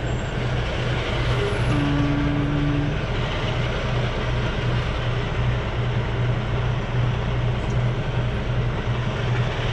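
Semi truck's diesel engine running as the truck creeps along at low speed, heard from inside the cab: a steady low drone with an even throb.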